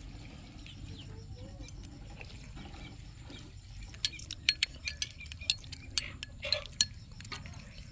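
Metal spoon clinking and scraping against a white ceramic bowl: a quick run of about a dozen sharp clinks in the second half, over a low steady background.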